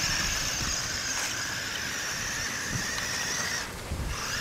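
Remote-control tracked stunt vehicle driving over gravel: its small electric drive motors whine at a steady high pitch, cut out shortly before the end, then give a short burst again.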